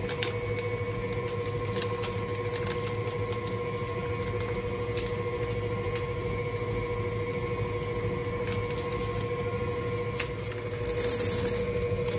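Electric stand mixer running steadily, beating buttercream, with a constant hum. A few small clicks and, about eleven seconds in, a short crinkle of the plastic zip bag as chocolate wafers are tipped into a glass bowl.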